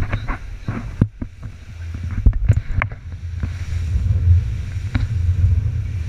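Rigid inflatable boat running through ocean chop: a steady low rumble of wind buffeting the microphone, with several short knocks of the hull slapping the waves, a cluster of them a little past the middle.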